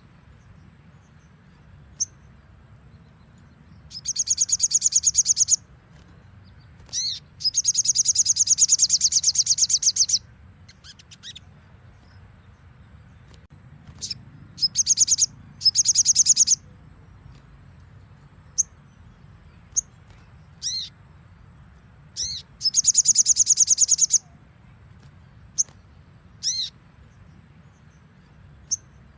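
Sogon (sogok ontong) songbird singing in rapid, high trilled bursts ('nembak'), each lasting one to three seconds and repeated about four times, with short, sharp single call notes between them.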